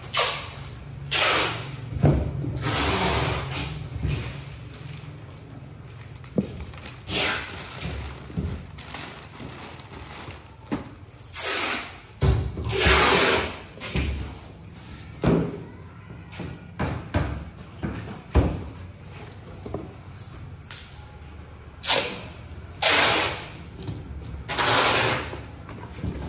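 Plastic bags rustling and crinkling in repeated short bursts, with occasional knocks and thumps from cardboard boxes being handled.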